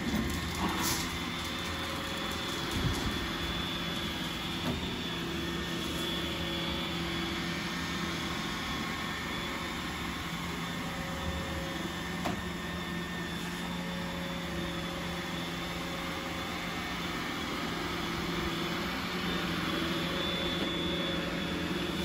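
iRobot Roomba robot vacuum running across a laminate floor: a steady whirring hum of its motors and brushes, with a few knocks in the first three seconds.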